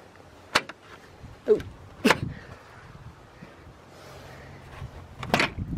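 Plastic grille clips on a Jeep Wrangler JL snapping back into place by hand: about four sharp plastic clicks spread out, two of them with a short squeak.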